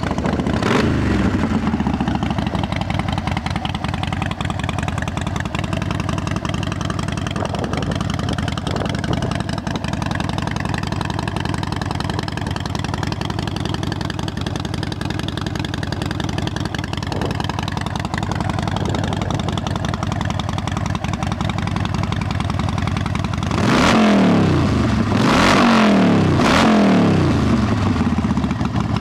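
Harley-Davidson Sportster Custom's air-cooled V-twin engine settling from a brief rev into a steady idle, then blipped three times near the end, each rev rising and falling back.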